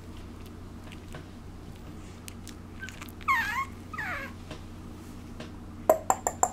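Two-month-old Chihuahua puppy whimpering twice, about three and four seconds in, each a short whine falling in pitch. Near the end comes a quick run of sharp clicks.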